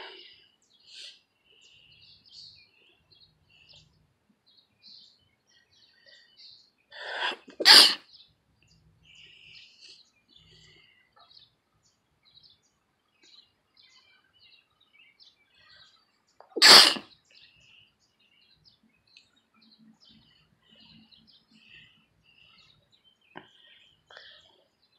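A person sneezing loudly twice, about nine seconds apart; the first sneeze has a short build-up just before it.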